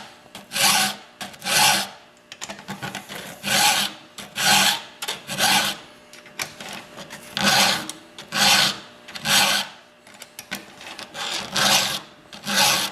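A file rasping across the cutting teeth of a chainsaw chain, sharpening it by hand in even forward strokes. The strokes come in groups of three about a second apart, with a short pause between groups as the file moves to the next tooth.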